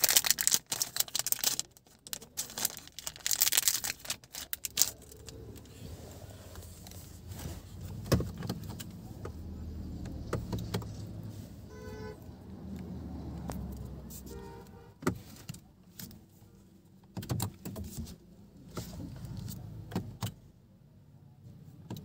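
Plastic packet crinkling in the first few seconds. Then scattered knocks, clicks and rustles of someone moving about in a car, with keys jangling. Two short electronic chimes sound about twelve and fourteen and a half seconds in.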